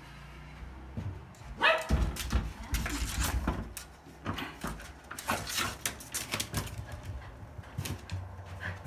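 Toy poodle barking in short, sharp calls, the first falling in pitch, mixed with thuds and knocks of movement close to the microphone.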